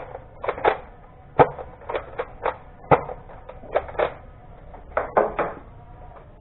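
A string of about a dozen sharp clicks and knocks at irregular intervals, several coming in quick pairs or triples.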